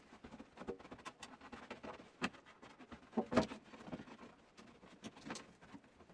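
Hands working on a dehumidifier: irregular light taps, clicks and scrapes, with a few sharper knocks in the middle and near the end.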